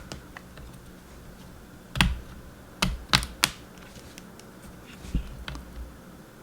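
Sharp little clicks and taps of a laptop RAM module being handled and pressed into its memory slot: a cluster about two to three and a half seconds in, then two more around five seconds.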